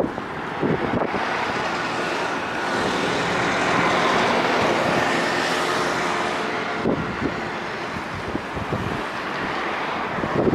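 A motor vehicle passing by, its noise swelling to a peak about four seconds in and then fading. Wind buffets the microphone before and after the pass.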